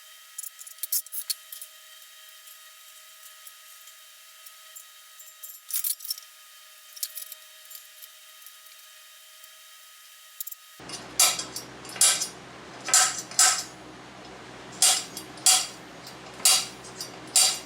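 Steel pieces and tools being handled on a workbench: light metallic clicks and clinks at first, then louder, irregular clanks and knocks from about eleven seconds in.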